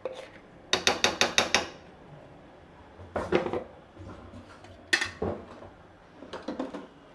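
A spatula clinking and scraping against cookware as marinated chicken is scraped into a kadai: a quick run of about six clicks about a second in, then single knocks about three and five seconds in, and a few softer taps near the end.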